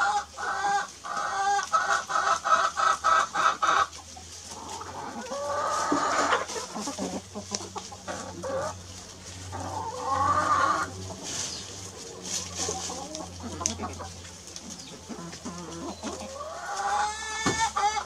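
Chickens clucking while foraging: a quick run of loud repeated clucks for the first four seconds, then quieter, scattered calls, with a rising call near the end.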